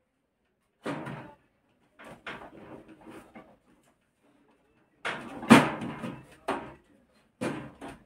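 Knocks and clatter from a microwave oven's control panel and casing being handled by hand, in several short bursts, loudest about five and a half seconds in.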